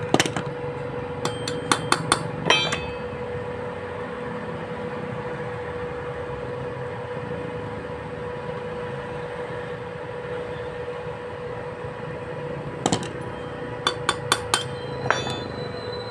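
Sharp metal-on-metal clinks and taps from a tool working a piece welded onto a broken bolt in a motorcycle cylinder head, to turn the bolt out. A quick run of about six clinks comes in the first three seconds and another run near the end, each ringing briefly.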